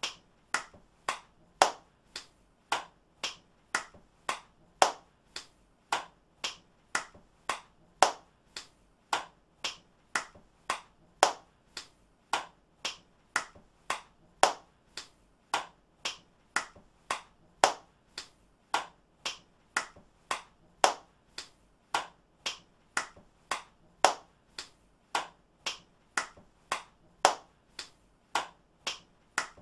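One person's hands clapping over and over, about two claps a second, some claps much louder than others, with near silence between them.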